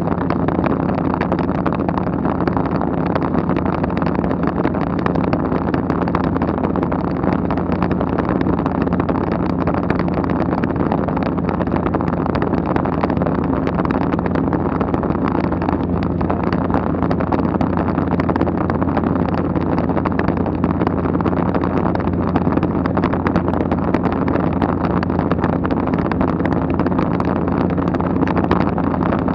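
Steady drone of a light aircraft's engine heard inside the cabin, a low hum with a few steady tones, mixed with the rush of wind past an open window. It holds even throughout.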